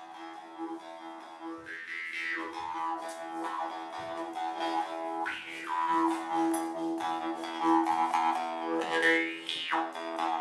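Jaw harp played with a steady drone, plucked rhythmically, its overtones sweeping up and down as the player shapes the mouth.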